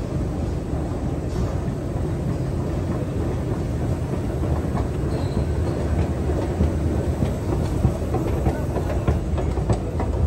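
Escalator running: a steady low mechanical rumble from the moving steps and drive, with faint clicks near the end.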